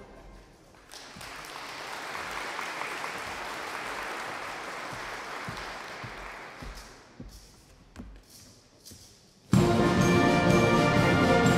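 Audience applauding for several seconds, then dying away, with a few scattered knocks. About three quarters of the way in, a brass marching band strikes up loudly and abruptly.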